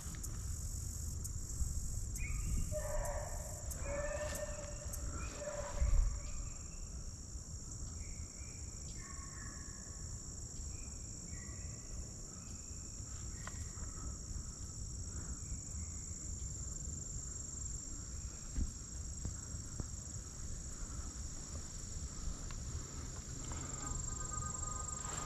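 Insects buzzing steadily in a high, even drone, while hounds bay in the distance several times, mostly in the first half. A single low bump about six seconds in.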